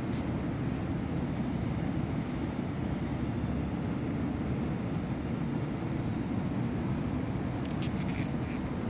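Steady low outdoor background rumble, with a few faint high chirps and light clicks.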